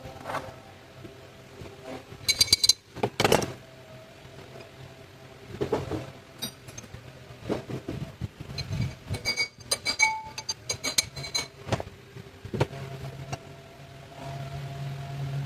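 Metal hand tools clinking and knocking on engine parts while they are being unbolted: several quick flurries of ringing metallic clinks, with duller knocks in between.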